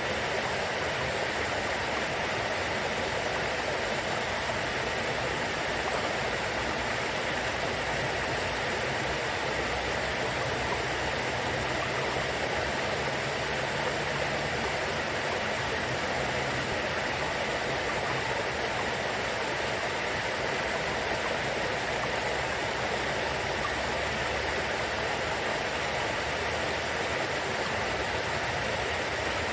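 Small river babbling and trickling steadily, an even rush of running water with no breaks.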